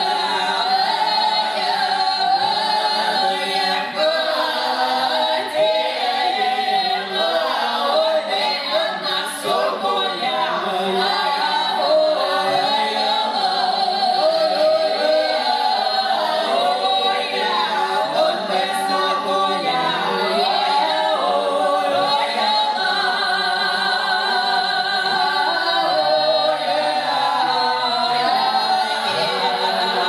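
A small mixed folk ensemble of women's voices with one man's voice singing a traditional Russian Cossack folk song a cappella, several voice parts sounding together in close harmony with sliding pitches.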